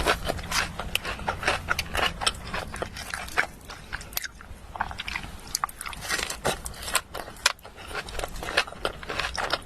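Close-up crunching and chewing of food: a quick, irregular run of crisp crunches as someone bites and chews, with a short lull about four seconds in.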